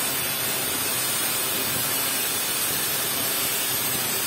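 Makita GA5030 angle grinder running, its cutting disc slicing through the copper end-windings of an electric-motor stator with a steady, even grinding hiss.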